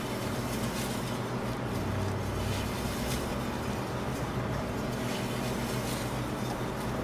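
Electric deli meat slicer running with a steady hum while cured ham is pushed back and forth through the blade, with faint high swishes every second or so as slices come off.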